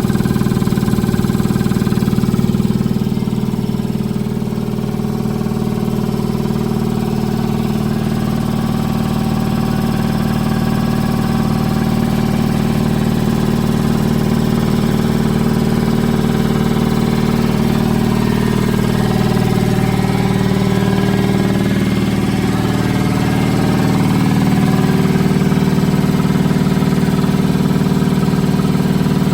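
Ingersoll Rand 7100E 15 HP three-phase piston air compressor running steadily with a low, even hum.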